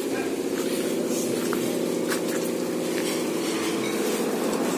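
Large bus diesel engine idling steadily, with a few light clicks over the hum.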